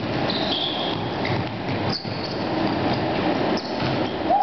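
Players running on a hardwood basketball court: a steady clatter of footsteps with several short, high sneaker squeaks.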